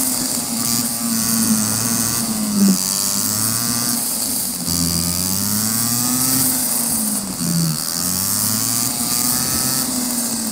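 Go-kart engine at speed, its pitch rising and falling as the kart brakes and accelerates through the corners, dropping sharply twice before climbing again. Steady wind rush on the microphone throughout.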